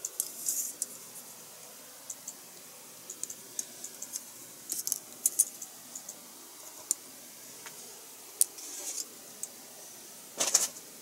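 Small plastic model-kit parts being handled and cut from their plastic runner: sharp little clicks and plastic rattling, with short rustling clusters about half a second in, around five seconds in and just before the end.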